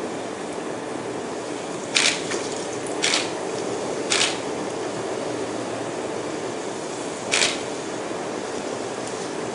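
Batter-coated banana pieces deep-frying in hot oil, a steady sizzling and bubbling, broken by four short, louder crackles about two, three, four and seven seconds in.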